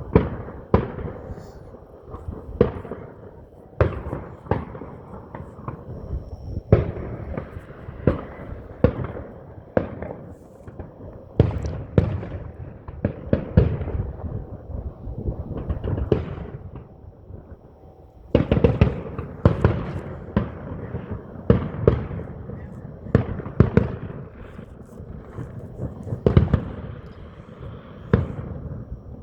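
Fireworks exploding in a long, irregular series of sharp bangs, a few per second, some landing close together. The bursts come thicker and louder from about eighteen seconds in.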